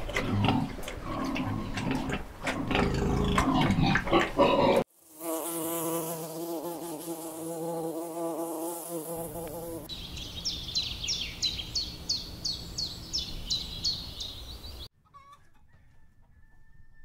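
Cuts between animal clips. A busy, loud mix of clicks and calls comes first. Then an insect's wings buzz steadily for about five seconds, followed by a quick series of short high chirps, about three a second, before it drops to near quiet.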